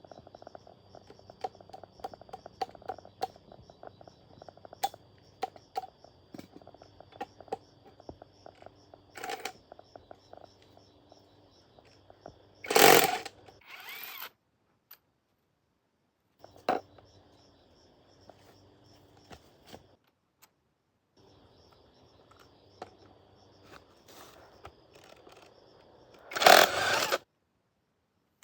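Metal tool work on machine parts: scattered clicks, taps and clinks, with two loud short bursts of a power tool, one about halfway through and one near the end.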